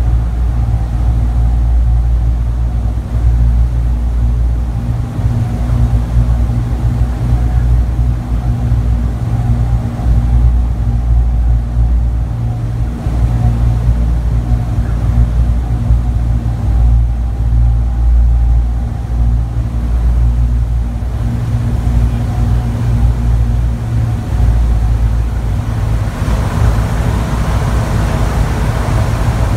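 Steady drone of a B-29 Superfortress's four Wright R-3350 radial engines heard from inside the glazed nose on final approach: a loud low hum with a few held tones. Near the end a rushing noise joins as the wheels roll on the runway after touchdown.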